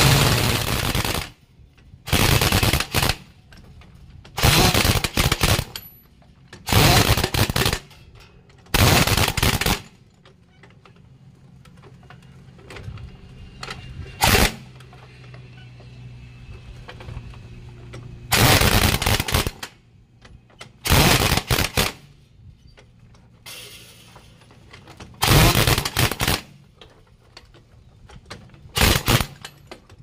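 Pneumatic impact wrench hammering on a truck's wheel nuts in about ten bursts of roughly a second each, a few seconds apart, with a low steady hum between the bursts.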